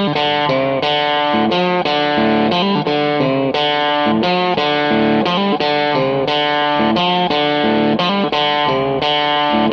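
Background music: an electric guitar plays a riff of quickly changing notes.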